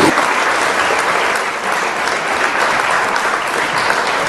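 An audience applauding: dense, steady clapping from a large crowd, starting as the song's music stops.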